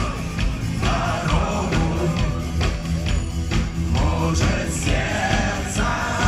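Rock band playing live: a steady drum beat and bass under a singing voice.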